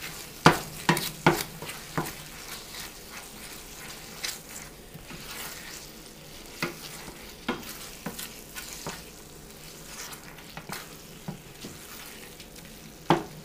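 Wooden spoon stirring thick spinach-and-cheese dip in a stainless steel skillet: irregular knocks and scrapes of the spoon against the pan, busiest in the first couple of seconds, over a low sizzle of the dip cooking on the burner.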